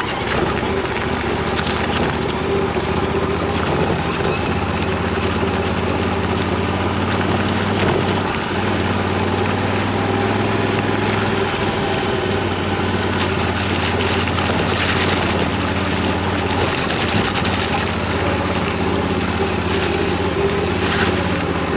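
Yamaha Ténéré 700's parallel-twin engine running steadily at low speed, with tyres rolling over loose gravel and a few short knocks from stones and bumps.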